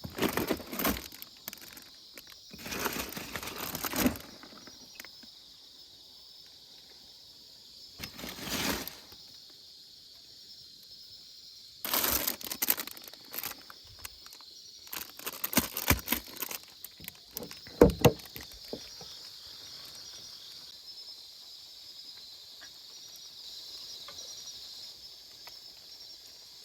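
Short bursts of rustling and crinkling, a few seconds apart, over a steady high-pitched hiss.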